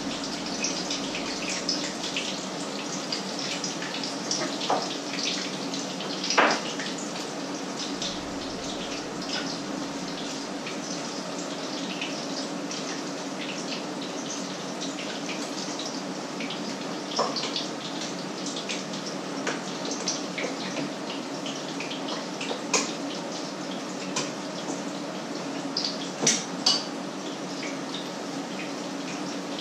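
Food sizzling and crackling in a frying pan on an electric stove, with a few sharp clinks of a utensil against the pan.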